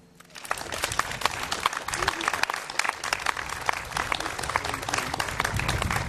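Audience applause breaking out about a third of a second in and carrying on as a dense, even patter of many hands clapping, with a few voices in the crowd.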